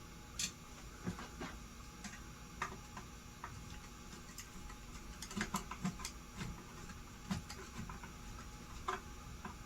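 Scattered light clicks and taps, irregular and unevenly spaced, from small fan parts and housing pieces being handled during reassembly, with a quick cluster of them a little past the middle.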